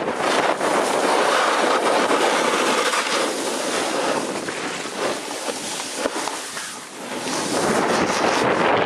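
Skis sliding and scraping over hard-packed, very cold snow on a fast descent, a dense steady hiss with wind on the microphone. It eases briefly about two-thirds of the way through, then picks up again.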